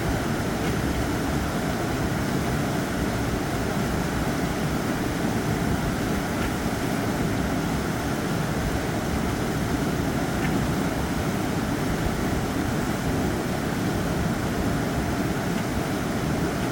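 A fast mountain river rushing, a steady roar of water that holds an even level throughout.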